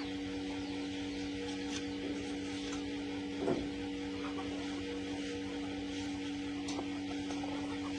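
Electric motor running steadily with a constant, even hum.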